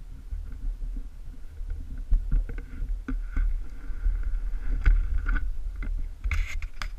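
Handling noise from an action camera being taken off a motorcycle mount: a heavy microphone rumble with scattered knocks, and a loud scraping rub with sharp clicks near the end.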